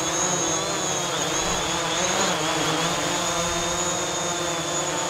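DJI Mavic Pro quadcopter with low-noise propellers hovering: a steady buzz with a high whine on top, the pitch wavering a little for a moment about a second or two in.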